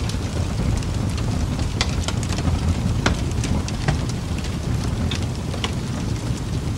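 Steady rain ambience: an even hiss over a low rumble, with scattered drops ticking irregularly.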